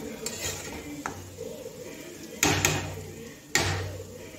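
Three sharp metal knocks, two close together about two and a half seconds in and one about a second later: a metal spatula knocking against an aluminium kadai of curry.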